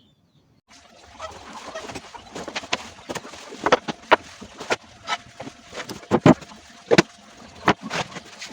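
Irregular knocks and clicks of parts and tools being handled during assembly of a homemade mini table saw, starting about a second in.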